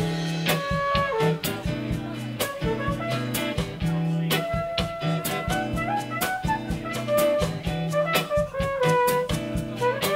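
Live band playing an instrumental passage: a horn-like lead melody over sustained chords and bass, with a steady beat of drum hits.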